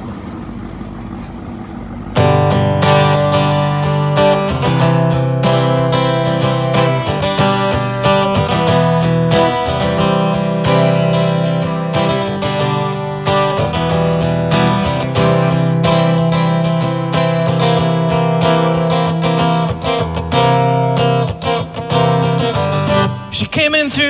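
Acoustic guitar starts playing about two seconds in: chords over a steady bass line, the instrumental intro of a song. A quieter stretch of background noise comes before it.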